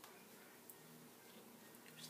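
Near silence: faint room tone with a low steady hum and a faint tick.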